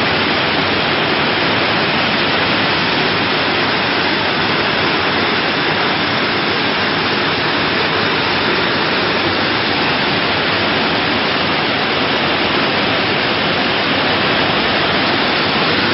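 Flash-flood torrent of muddy water rushing past, a loud steady rush with no letup.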